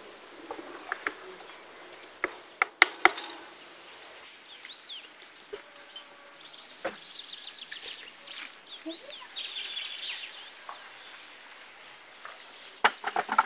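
Small birds chirping in quick runs over a quiet outdoor background, with a few sharp clicks two to three seconds in. Near the end comes a short cluster of sharp clinks as a lid is set onto a glass teapot.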